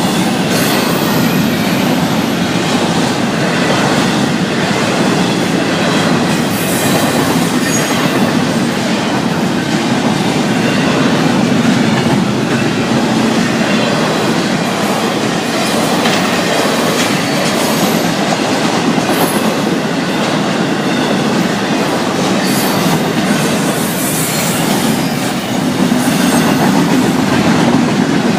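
Freight cars of a unit train rolling steadily past at close range: a continuous rumble of wheels on rail with faint high wheel squeal over it.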